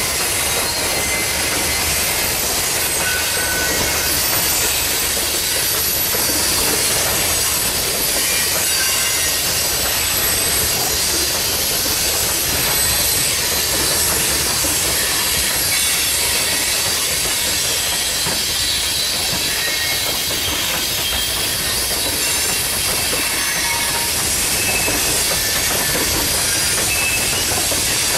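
Freight train of covered hopper cars rolling past: a steady noise of steel wheels on rail, with short high wheel squeals here and there.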